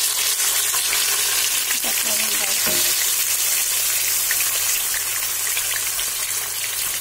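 Food frying in hot cooking oil: a steady sizzle with scattered small crackles and pops.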